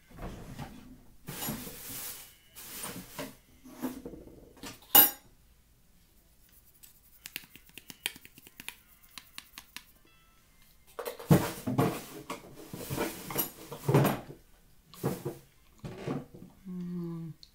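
Close-up crunching and chewing of cornstarch chunks, in two spells of dense crunches with a sharp snap about five seconds in and a quieter stretch of faint rapid clicks between them. A short hummed "mmm" near the end.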